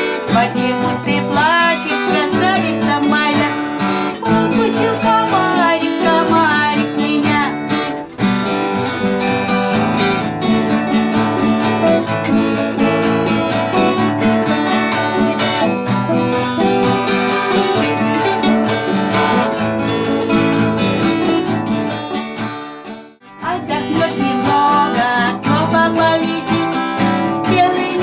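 Two acoustic guitars played together, with a woman singing along. The playing breaks off briefly about three quarters of the way through, then starts again.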